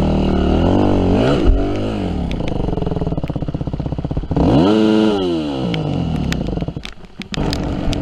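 Yamaha WR250F dirt bike's four-stroke single-cylinder engine revving up and down under riding. It revs about a second in, blips sharply at about four and a half seconds, then falls away and dips briefly near the end. Scattered clicks and knocks run under it.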